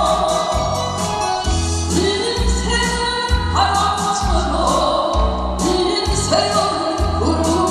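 A woman singing a Korean trot song live into a microphone over an amplified backing track with a steady, pulsing bass beat.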